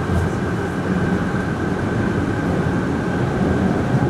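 Subway train running through a tunnel, heard from inside the front car: a steady rumble of wheels and running gear with a thin, steady high tone over it.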